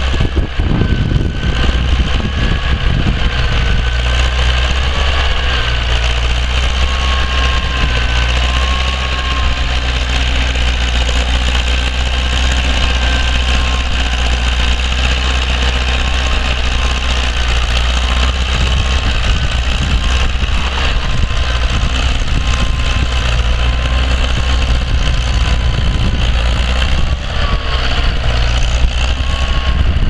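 1956 International B-250 tractor's four-cylinder diesel engine running steadily under load while pulling a two-furrow reversible plough.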